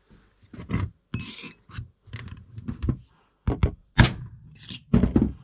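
Hammer tapping a steel punch against the back of a Mariner 20hp outboard's prop shaft oil seal, trying to drive it out of the propeller shaft carrier. About a dozen irregular metallic taps, some ringing briefly, the loudest about four seconds in. The seal is stuck fast, corroded in behind.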